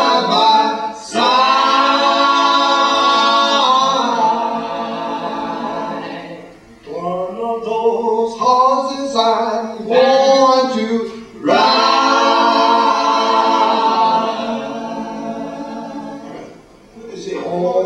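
Unaccompanied singing in long held notes, phrase by phrase, with a break about seven seconds in and another near the end.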